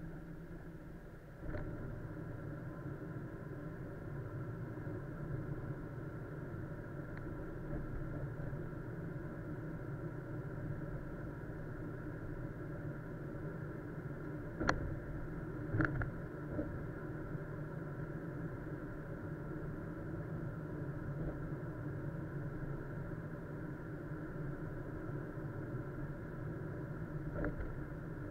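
A car running, heard through a dashcam: a steady engine and road noise with a few sharp knocks, two of them close together about halfway through.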